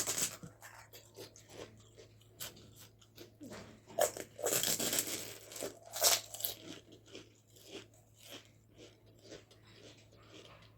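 Close-up biting and chewing of crisp fried food, crunching loudest right at the start, again about four to five seconds in and once more near six seconds, with smaller chewing clicks in between.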